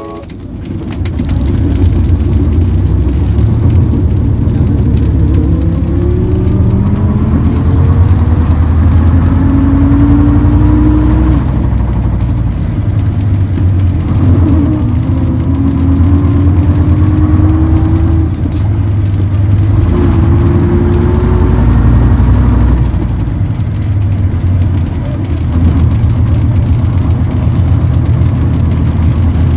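Gardner 5LW five-cylinder diesel of a Bristol K5G double-decker bus running under way, heard from inside the bus: a deep, steady rumble with a whine that climbs in pitch as the bus gathers speed, falling back three times at the gear changes.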